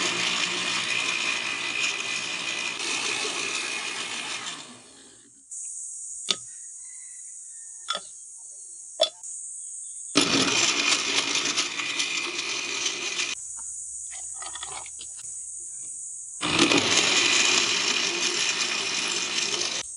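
Countertop blender running in three bursts of a few seconds each, crushing ice, fruit and kale, with a few sharp clicks in the pauses between runs.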